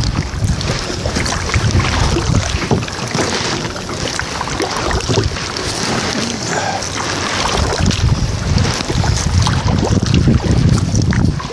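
Paddle strokes of a fishing kayak: the blades splashing and dripping in lake water, with wind rumbling on the microphone in uneven gusts.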